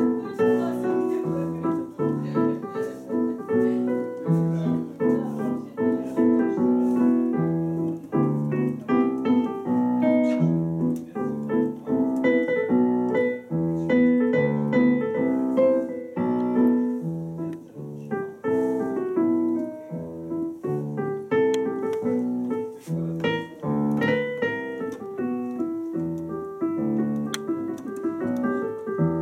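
Piano music: low bass notes about once a second under chords and a melody.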